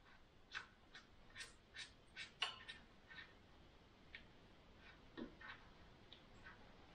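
Faint, irregular clicks and taps of a plastic bicycle-light handlebar mount being fitted and fastened onto a handlebar by hand, a dozen or so, busiest in the first few seconds.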